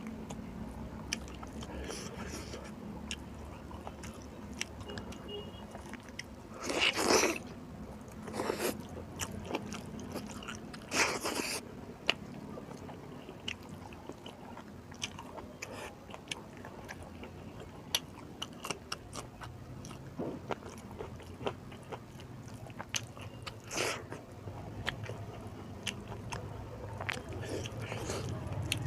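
A person eating rice with beef curry: chewing and mouth sounds with many small scattered clicks, and a few louder short bursts now and then.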